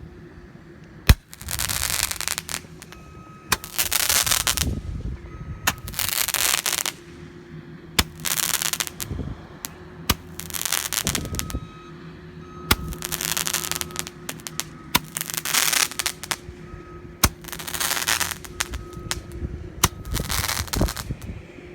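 Roman candle firing, about ten times. Each shot is a sharp pop followed by about a second of crackling as its crackling star burns, roughly every two seconds.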